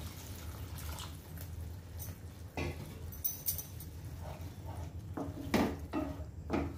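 Spatula stirring a thin masala curry in a non-stick pan, with scattered scrapes and knocks against the pan, more of them in the second half, over a steady low hum.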